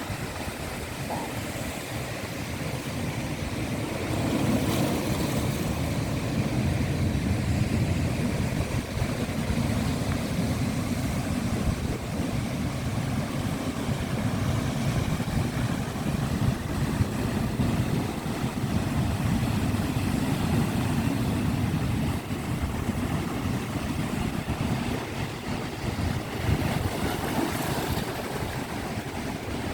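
Sea waves washing in and breaking in a steady, surging rush, with a low rumble of wind on the microphone. The surf swells louder about four seconds in.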